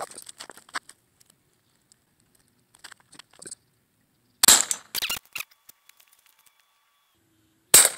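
Hatsan Jet II .22 PCP air pistol firing: a sharp crack about halfway through, two shorter snaps just after it, and another sharp crack near the end, with light handling clicks before the first.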